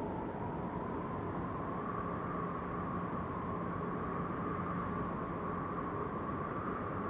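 Steady mountain wind, a continuous rushing with a faint whistling tone running through it.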